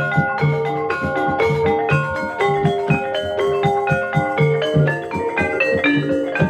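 Jaranan accompaniment music: mallet-struck tuned percussion ringing out repeating notes over a steady drumbeat.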